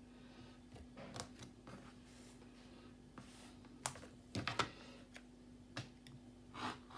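Faint handling noises of fabric and sewing tools on a work table: scattered light clicks and short rustles, a little sharper and more frequent in the second half, over a steady faint hum.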